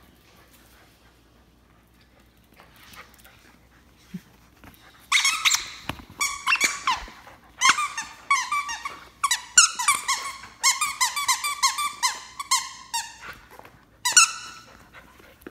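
Dog's squeaky plush toy squeaking over and over as a German Shepherd puppy chews it, in quick runs of short high squeaks starting about five seconds in, pausing briefly and starting again near the end.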